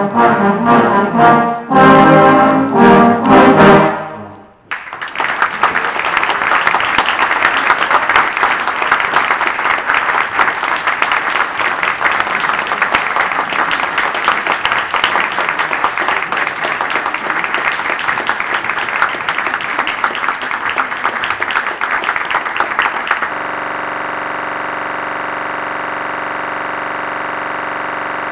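Children's brass band, with trombones and trumpets, playing its closing chords, which stop about four seconds in, followed by steady applause. The applause cuts off abruptly near the end and a steady unchanging drone of tones remains.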